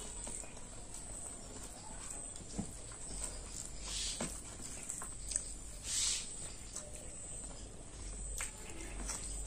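A person eating with close-miked mouth sounds: scattered small wet clicks of chewing. There are brief hissy sounds about four seconds in and a louder one about six seconds in.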